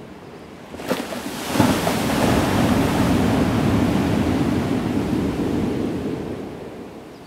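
Ocean surf on a sandy beach: a wave breaks about a second in, and its rushing wash holds for several seconds before fading away near the end.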